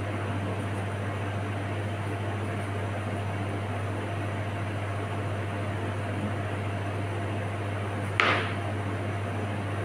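Steady low hum of running kitchen equipment. About eight seconds in, one sharp knock as a knife cuts through a piece of bottle gourd onto a plastic cutting board.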